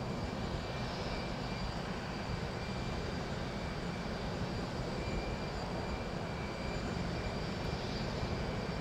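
Steady jet aircraft turbine noise on an airport apron: a low rumble under a faint, even high-pitched whine.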